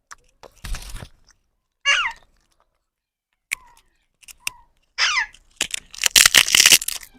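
Two short squawks from parrot chicks, each falling in pitch, amid scattered crunching clicks. The crunching grows into a dense crackle near the end.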